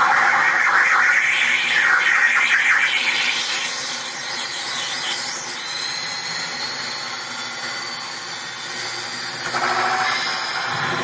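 Electronic feedback noise from an experimental sound-light installation. It is a dense, harsh noise at first, thins after a few seconds to a hiss with thin, steady, high whistling tones, and the middle-range noise swells back near the end.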